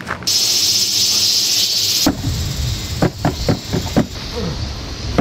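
Cicadas buzzing steadily in summer woodland, cutting off suddenly about two seconds in. After that a low rumble with scattered short knocks and clicks.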